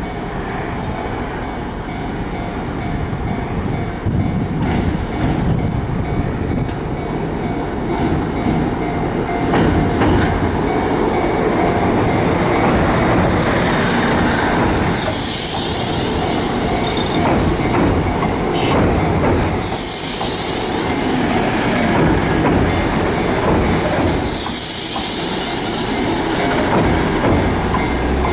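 Kintetsu Minami-Osaka Line electric train passing close by, its wheels rumbling on the rails and growing louder a few seconds in. In the second half a high hiss from the wheels comes back every four to five seconds.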